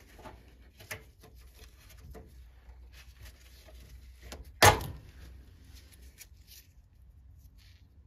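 Broken Goodman furnace door switch being worked out of its sheet-metal mounting hole by gloved fingers: faint small clicks and handling noise, then one sharp snap about four and a half seconds in as the switch comes free.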